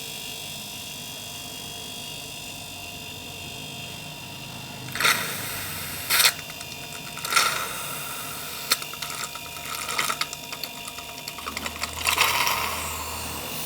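Refrigerator compressor running steadily while it sucks compressor oil up a hose into its suction pipe. From about five seconds in, sharp hissing slurps and crackles break in as the oil and air are drawn through, thickest near the end.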